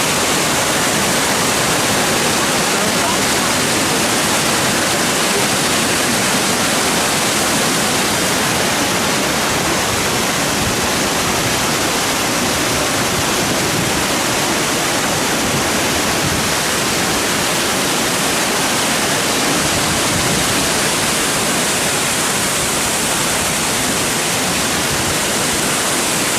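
Continuous, loud, even rush of falling water from Veliki slap, the great plunging waterfall at Plitvice Lakes.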